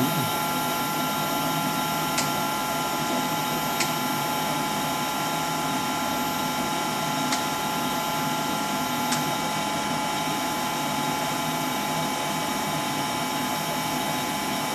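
Steady machine whirring with several whining tones held throughout, broken by four short sharp ticks.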